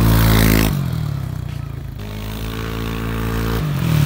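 Yamaha N-Max 155 scooter's single-cylinder four-stroke engine running through an aftermarket Pro Speed street-legal exhaust as it is ridden, a soft, mellow exhaust note. It is loudest in the first half second, settles to a steady note, and grows louder again near the end, with the pitch shifting abruptly twice.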